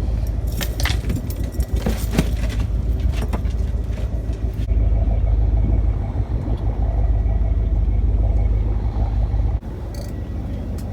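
Motorboat running under way: a steady low rumble with wind on the microphone, and clattering knocks in the first three seconds. The sound shifts abruptly about five seconds in and again near the end.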